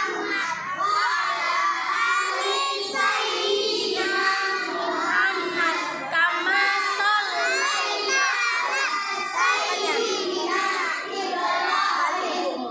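A group of young children's voices chanting loudly together, many voices overlapping throughout.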